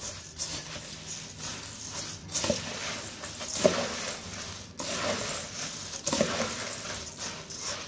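Metal spoon stirring dry puffed rice in a stainless steel bowl: a steady rustling of the light, crisp grains. A few times the spoon scrapes or knocks against the side of the bowl.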